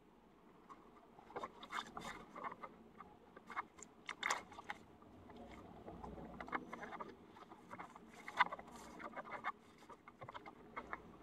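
Thin Frisk Keep Wet palette membrane sheet crinkling and rustling under the hands as it is laid over soaked paper in a plastic palette tray and smoothed flat: soft, irregular crackles and taps.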